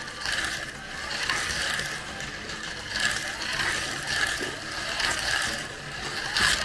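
Toy slot cars running around a plastic slot-car track: their small electric motors and gears give a steady whirring rattle that swells and fades as the cars pass.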